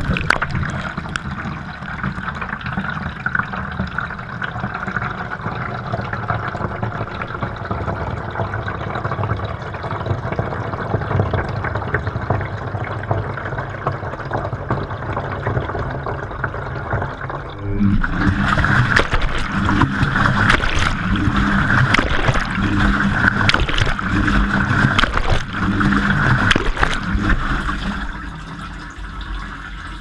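Front-loading washing machine running, heard from inside its drum: water sloshing and trickling as the drum turns. About two-thirds of the way through it grows louder with a steady pulse about once a second, then eases off near the end as water sprays into the drum.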